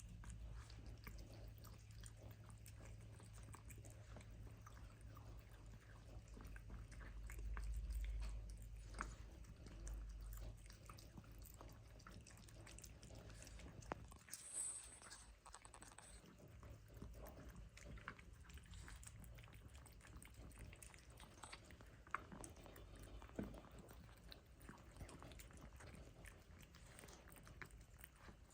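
A cat chewing and biting food, heard as quiet, scattered small clicks and crunches over a low steady hum.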